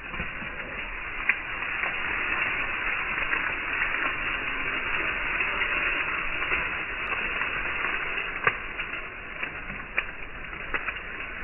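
A zebu cow grazing close up, tearing and chewing dry rice stubble and grass: a continuous crisp crackling and rustling, with a few sharp snaps of stalks breaking.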